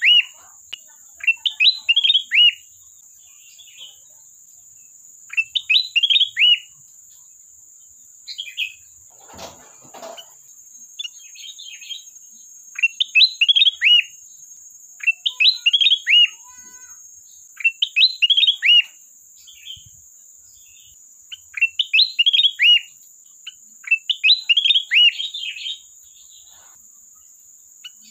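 Kutilang emas bulbul singing short, loud, bubbly whistled phrases, one about every two seconds. A steady high-pitched whine runs underneath, and a brief rustle comes about ten seconds in.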